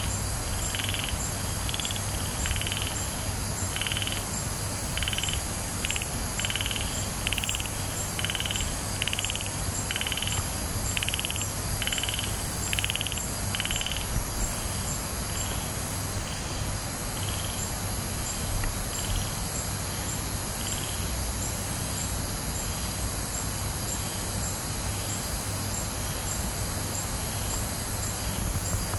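Night chorus of insects, a steady high shrilling with a faint regular pulse, with a short call repeated about once a second that fades out about halfway through. A low steady hum runs underneath.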